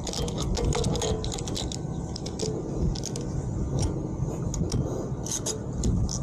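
Wind rumbling on the camera microphone, with scattered light clicks and rattles throughout.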